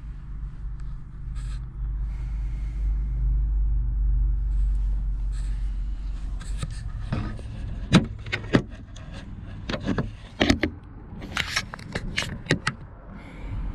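A steady low rumble, then, from about halfway, a run of sharp knocks, clicks and rustles as someone moves about inside a camper van and sits down.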